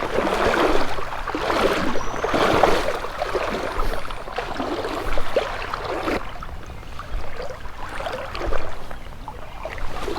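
Creek water sloshing and splashing, swelling and fading unevenly every second or two, with a few faint clicks.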